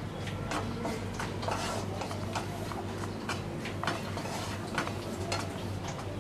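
A spatula scraping and tapping in a pan as dry coconut is stirred while it dry-roasts: irregular light clicks about once or twice a second, over a low steady hum.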